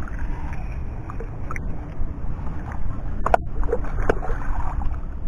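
Shallow lake water sloshing and splashing around the legs of someone wading and working a metal sand scoop, over a steady low rumble. Two sharp knocks come about three and four seconds in.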